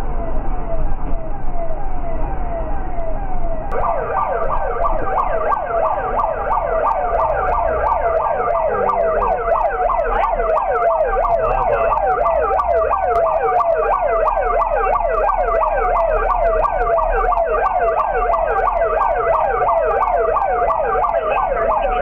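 A siren-like tone sweeping down in pitch over and over, several times a second, growing louder and fuller about four seconds in.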